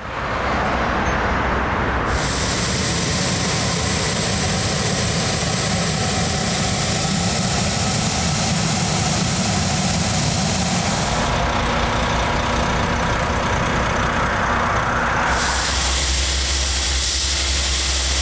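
Heavy vehicle engines running at the roadside with a loud steady hiss of spraying. The hiss cuts out for about four seconds past the middle, leaving mainly the low engine rumble, and then comes back.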